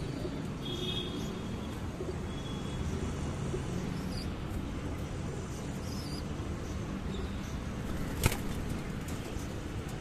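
Feral pigeons flapping their wings as they jostle at a feeder, over a steady low rumble of city traffic, with one sharp knock about eight seconds in.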